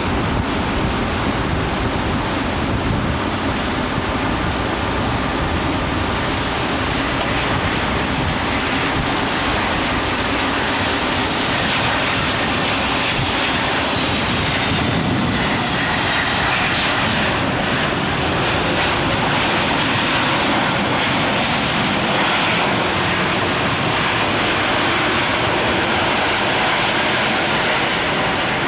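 Heavy rain hissing steadily over the noise of jet aircraft engines, with an engine whine falling in pitch about halfway through as an aircraft passes.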